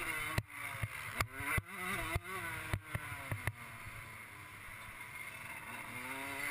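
Suzuki RM125 two-stroke single-cylinder motocross engine under riding load. For the first few seconds the revs rise and fall, broken by many sharp knocks. It then runs quieter and steadier through a bend, and revs up again near the end as the bike accelerates.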